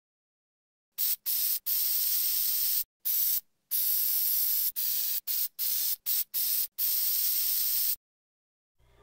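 Aerosol hairspray can spraying in a rapid series of hissing bursts, some very short and some held for about a second, starting about a second in and stopping about a second before the end.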